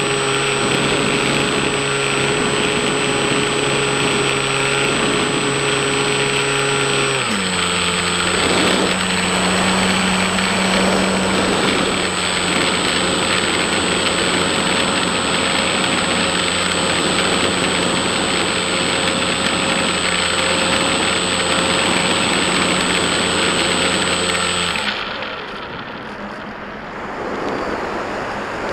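Electric motor and propeller of a Bixler-style foam RC plane, heard from its onboard camera: a steady hum that steps down to a lower pitch about seven seconds in as the throttle comes back, then cuts out near the end, leaving air rushing over the airframe as it glides down.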